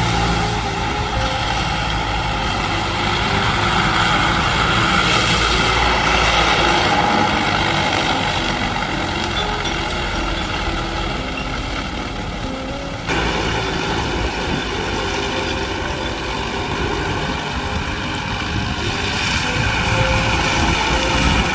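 Excavator's diesel engine running steadily while its weed-cutting mower attachment works. The sound changes abruptly about 13 seconds in.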